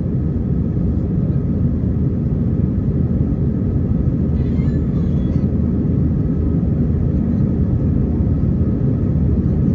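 Airbus A320 cabin noise in flight: the steady, unbroken rumble of the engines and airflow heard from a passenger seat.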